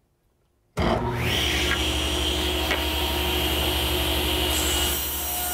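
Table saw running and ripping a board to width. The sound starts abruptly under a second in and holds steady, with a high whine over a low hum.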